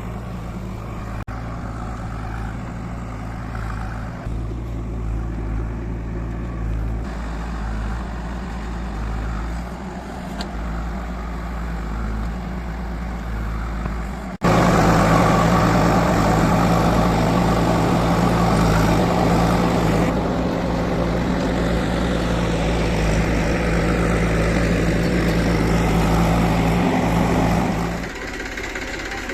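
Heavy diesel engine running steadily. About halfway through it cuts suddenly to a louder, closer engine, which drops back to the quieter level near the end.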